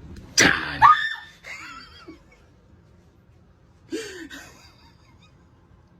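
A person gasping and crying out in fright about half a second in, two sharp vocal bursts close together, then quieter breathy sounds and a short voiced sound near four seconds in.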